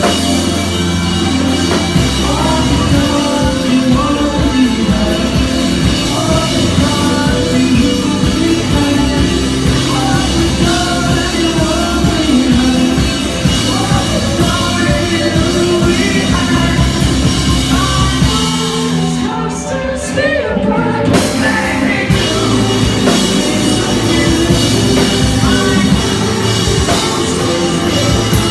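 Live rock band playing loudly, with drum kit, guitars and a sung vocal. About two-thirds of the way through the sound briefly thins out, losing its top end, then the full band comes back in.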